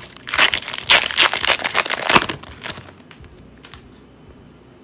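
The wrapper of an Upper Deck Series 2 hockey card pack crinkling loudly as it is torn open and pulled off, for about two and a half seconds. After that come a few soft clicks as the cards are handled.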